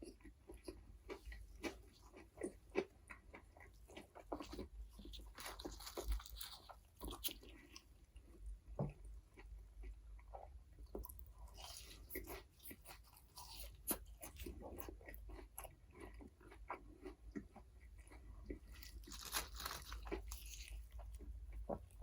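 Close-up eating sounds of McDonald's burgers and fries: crisp crunching bites and moist chewing, with three denser bouts of crunching several seconds apart.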